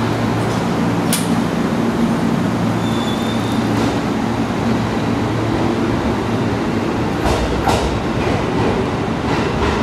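A 205-series electric commuter train pulling out of the station past the listener, its motors humming steadily. The wheels click over rail joints a few times as the cars go by.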